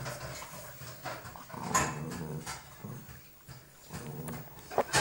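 A dog growling in several short, low rumbles while guarding a Dentastix chew from a playful hand, with a few sharp clicks, the loudest near the end.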